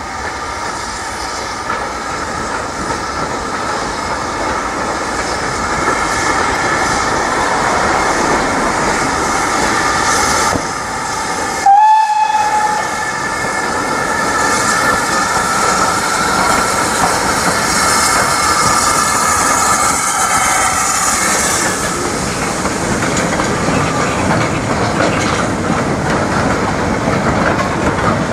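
Steam locomotive hauling a goods train of steel mineral wagons past, the wagon wheels clattering steadily over the rail joints. About twelve seconds in comes one short, loud whistle blast.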